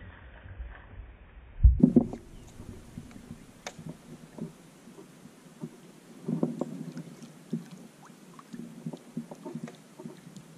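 Kayak paddling: irregular paddle strokes in the water, with scattered light knocks and one heavier thump about two seconds in.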